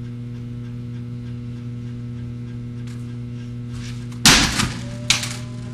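Steady electrical hum throughout, then about four seconds in a loud slam as a skateboard and its rider hit the concrete pavement after a drop from a ledge, followed about a second later by a second, smaller impact.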